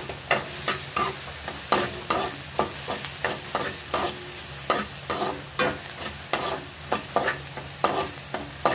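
Garlic and onion sizzling in hot oil in a wok while a spatula stirs them, scraping and knocking against the pan about three times a second.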